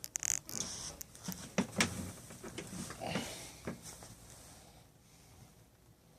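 Rustling, scuffling and light clicks of a small kitten moving about and being handled, busiest in the first four seconds and then dying away.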